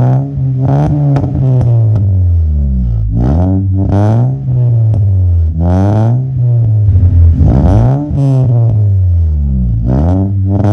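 2010 Honda City's four-cylinder engine revved while standing still, breathing through an aftermarket full exhaust and air intake. The engine note rises and falls back repeatedly in quick throttle blips.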